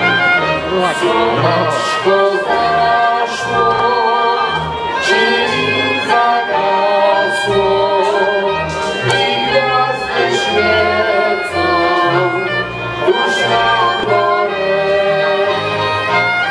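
Polish folk band playing live: fur-covered bagpipe, clarinet, accordion, fiddle and double bass, with a woman singing over them and the bass plucking a regular beat.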